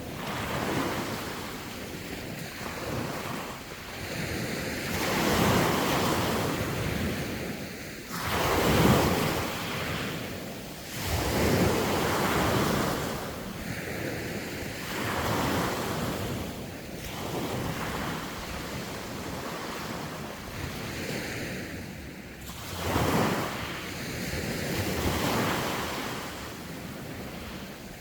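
Sea waves breaking and washing up the shore, swelling and falling back every few seconds, with wind buffeting the microphone.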